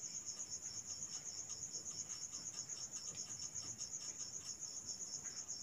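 A cricket chirping steadily, a high, rapidly pulsing trill, with faint scratchy strokes of a marker writing on a whiteboard.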